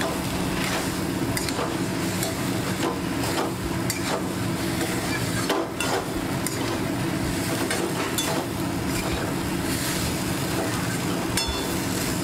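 Long metal spatula stirring and scraping a chickpea and mashed-potato mixture frying in oil in a steel wok, with a steady sizzle and irregular clinks of the spatula against the pan. A steady low hum runs underneath.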